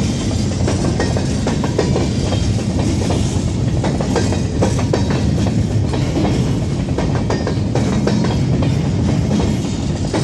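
Freight train of open-top gondola cars rolling steadily past, a continuous rumble of steel wheels on the rails with frequent clattering clicks over the rail joints.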